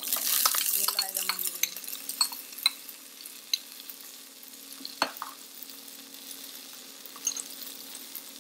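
Green peas tipped into hot ghee in a pan: a loud sizzle as they land that settles to a soft frying hiss. A spoon scrapes and taps the last peas out of a bowl, with one sharp knock about five seconds in.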